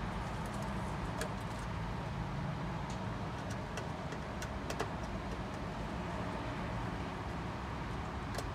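Steady low background rumble, with scattered faint clicks from wires and small terminal screws being handled at the controller's screw terminal block.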